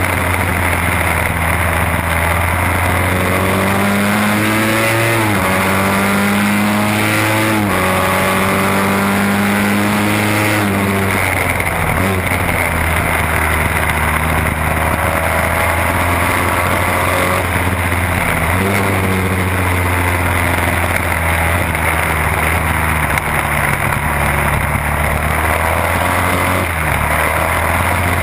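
Race-tuned Norton Commando 750 parallel-twin engine running hard, heard from on board the motorcycle, with wind rush. Its pitch climbs and drops back several times as the bike accelerates and shifts or backs off through the corners.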